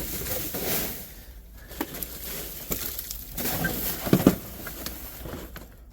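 Rummaging through dumpster trash: plastic bags and packaging rustling and crinkling, with scattered small clicks and knocks as items are handled.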